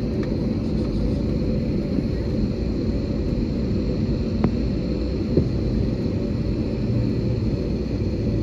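Cabin noise of an Airbus A320-family jet taxiing on the ground: a steady low rumble of engines and rolling wheels, with two short knocks about four and a half and five and a half seconds in.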